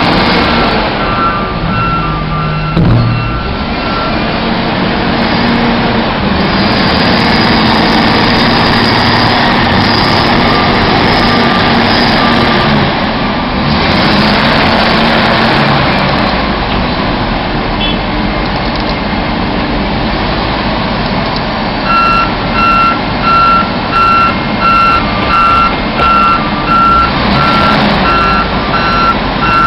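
Snow-clearing vehicle's engine running under load, with its reversing alarm beeping at an even pace for a few seconds near the start and again through the last third.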